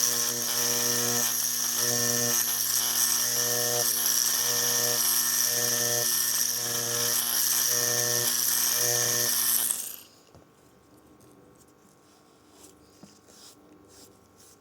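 Tattoo machine running with a steady buzz, its lower hum swelling and easing about once a second as the needle works. It stops suddenly about ten seconds in, leaving faint small clicks and handling.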